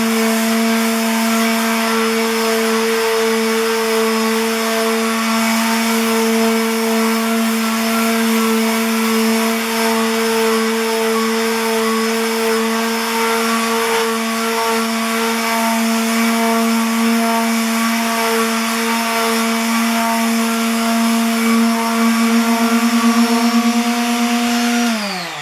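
Electric sander running steadily at a constant pitch while sanding rust off an oiled cast-iron table saw top. Near the end it is switched off and winds down, its pitch falling.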